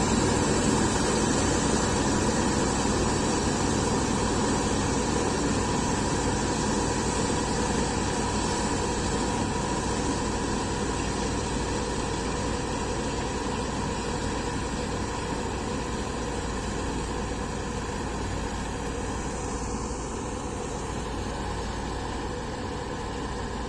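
Combine harvester engine running steadily, gradually getting quieter.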